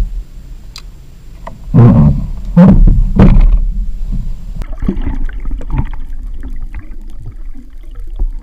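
Water splashing and knocks against a kayak hull, loudest about two and three seconds in. From about halfway, muffled water noise heard through an underwater camera.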